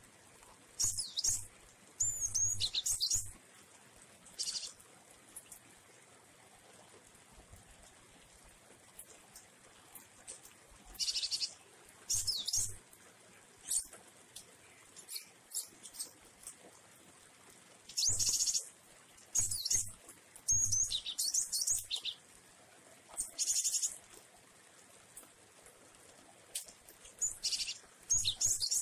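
Caged glatik wingko (gelatik batu, a cinereous tit) singing in short, high chirping and trilling phrases, some with quick sweeping notes, about ten bursts separated by pauses of a second or more.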